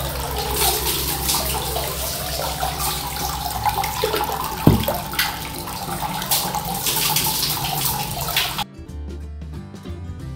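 Water running and splashing in a bath, with a tone that dips and then climbs as it runs, and a single knock a little before five seconds in. Near the end the water sound cuts off abruptly and background music takes over.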